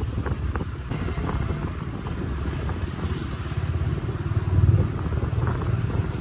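Motorcycle engine running while riding, a low steady engine note that swells briefly a little past halfway.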